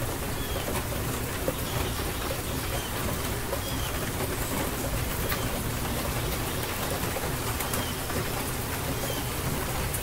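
Steady rain falling, with sharp individual drop hits. A bird gives short chirps now and then.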